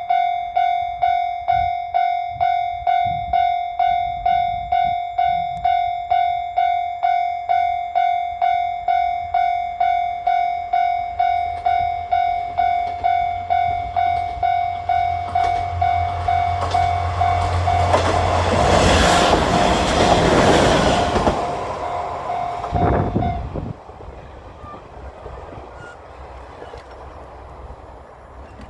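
Japanese level-crossing warning bell dinging about twice a second. It is joined by the rising rumble of the JR Kyushu Ibusuki no Tamatebako diesel train, which approaches and passes loudly about two-thirds of the way in. The bell stops a couple of seconds after the train clears, leaving a fading rumble.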